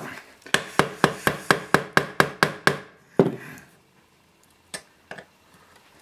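Rapid knocks on a screwdriver set in a seized slotted screw, about five a second for two seconds, then one more knock and two faint ones. This is the kind of tapping used to break a screw loose that is locked by dirt.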